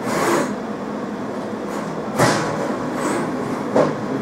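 Jewellery laser welding machine running with a steady mechanical hum during its charging self-check. Sharp knocks or clicks come about two seconds in and again near the end.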